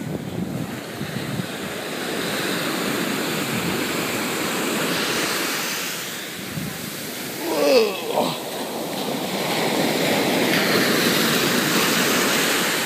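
Ocean surf washing up the sand at the water's edge, a steady rushing wash that swells twice as waves roll in. A short cry sounds about eight seconds in.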